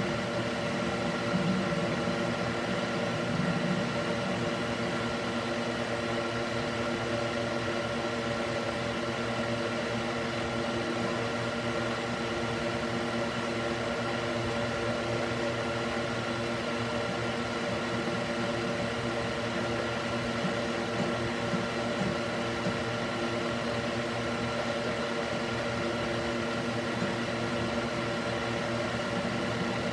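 Electric cooling fan mounted in a wooden box, running steadily: an even whir with a hum of several steady tones. There are a few faint low bumps in the first few seconds.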